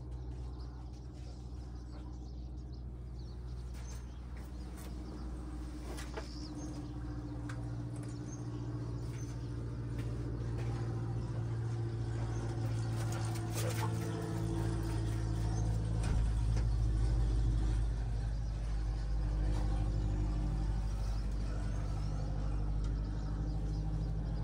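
Ford 7.3 Power Stroke V8 diesel idling with a steady low hum. It grows louder and deeper from about halfway in, with a few faint clicks over it.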